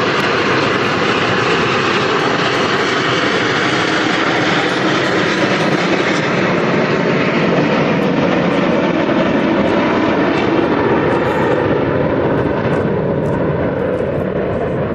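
Jet engines of a nine-plane Frecce Tricolore formation of Aermacchi MB-339 PAN trainers flying past, a loud, steady roar. The higher part of the sound dies away over the last few seconds.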